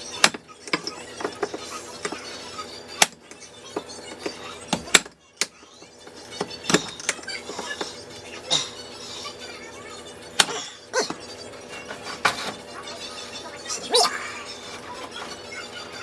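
Frozen seafood-boil contents and kitchenware being handled, giving irregular sharp clinks and knocks, about a dozen in all.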